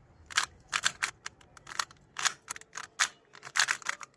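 A 2×2×2 Rubik's Cube being turned fast by hand: a quick, irregular run of plastic clicks and clacks as its layers snap round, beginning about half a second in.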